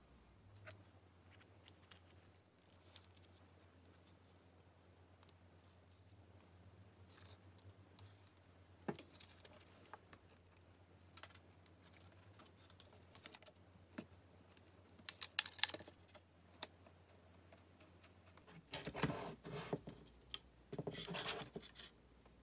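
Small laser-cut wooden parts and a stepper motor being handled and fitted together: scattered light clicks and taps, becoming a denser clatter of wood pieces knocking together near the end. A faint low hum sits underneath.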